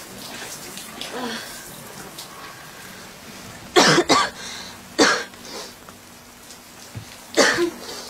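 A woman coughing in short bursts: a quick double cough about four seconds in, then single coughs about five and seven and a half seconds in.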